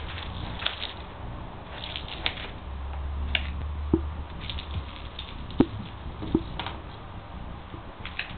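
Pet stoat scrabbling in a plastic tub of snow: scattered crunching and scratching of snow, with three sharp knocks in the middle.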